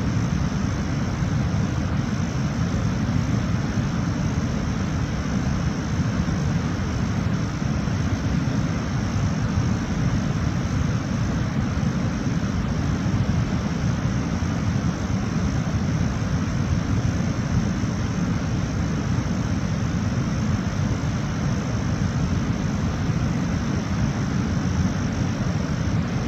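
Waterfall rushing steadily: a constant low rumble with a fainter hiss above it.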